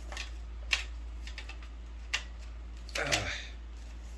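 A few sharp clicks and knocks as a smoke alarm is worked out of its packaging by hand, with a short rustle about three seconds in.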